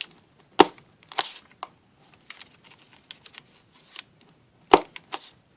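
Plastic toy paper punch pressed down hard until it pops: two loud snaps, one about a second in and one near the end. Lighter clicks and a brief rustle of paper come between them.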